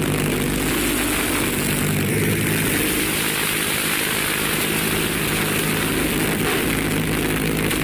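Six-cylinder Rolls-Royce Continental aircraft engine of the TMC Dumont motorcycle running steadily as the bike rides along.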